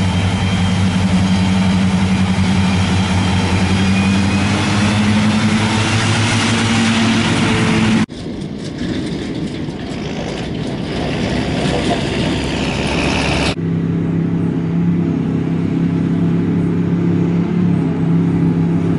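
Diesel engines of silage machinery working in a grass field, in three abrupt cuts. First a Krone BiG M self-propelled mower running steadily, its engine note rising slightly. About eight seconds in comes a noisier pass of a John Deere tractor drawing a loaded silage trailer, and about five seconds later a John Deere self-propelled forage harvester and its tractor running steadily.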